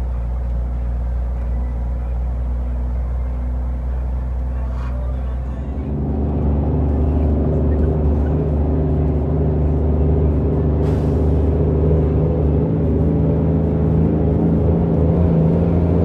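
Heavy truck's diesel engine running as it drives, heard from inside the cab. About six seconds in the engine gets louder with a fuller, deeper note as it pulls harder, and holds there.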